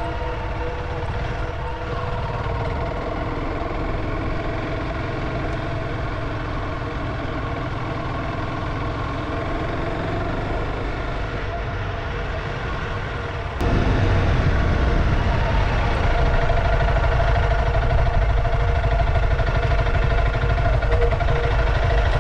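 Honda CRF300 Rally's single-cylinder engine running steadily as the motorcycle is ridden, with road and wind noise underneath. The sound jumps abruptly louder about two-thirds of the way through.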